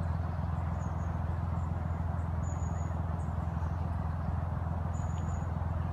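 Narrowboat diesel engine idling with a steady low hum. Two faint high chirps come in briefly, about two and a half and five seconds in.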